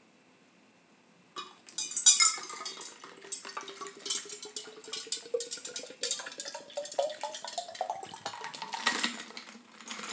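Water poured from a plastic bottle into a stainless steel tumbler, glugging and splashing, its pitch rising steadily as the tumbler fills. A few sharp clinks come just before the pour, about a second and a half in.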